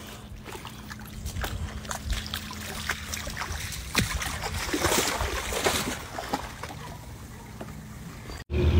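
Quiet shoreline ambience: gentle water sloshing with scattered light clicks. Near the end it cuts off and a sudden loud low rumble begins.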